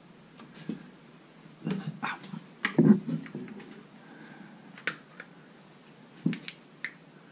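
Scattered clicks and light metal knocks from a steel hub being handled on a milling machine's quill shaft, the loudest cluster about three seconds in, then a few single clicks.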